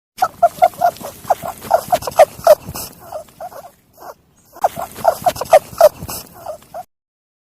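An animal's rapid, short, repeated cries, several a second, in two bouts with a brief pause between them.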